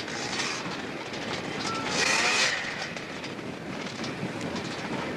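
Off-road motorcycle engine running hard under load as the bike climbs a steep dirt hill, with a louder surge about two seconds in.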